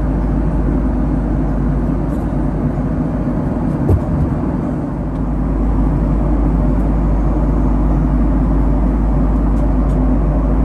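Steady rumble of a Boeing 767-300 airliner's engines and airflow heard inside the cabin, with a single short knock about four seconds in.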